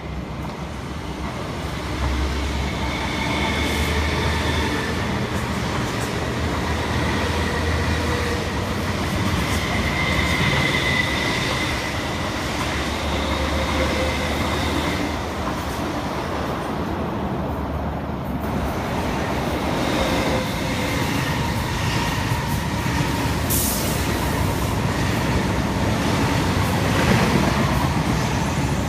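MTR East Rail Line Metro Cammell electric multiple unit passing close by, its wheels running on the rails in a continuous loud noise with steady high whining tones over it.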